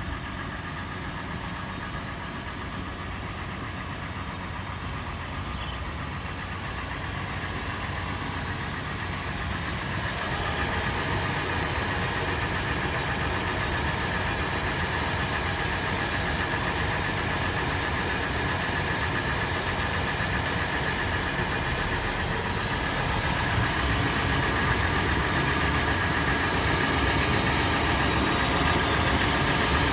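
Toyota FJ engine idling after a warm start, with a clattering, tapping noise that the owner is trying to diagnose. The sound gets louder about ten seconds in and again a little louder near the end.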